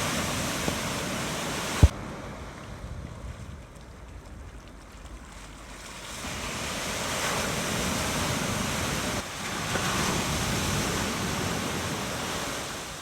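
Shore-break waves from a typhoon swell rushing and washing, with wind buffeting the microphone. A single sharp knock about two seconds in; the surf drops off briefly after it and swells up again about six seconds in.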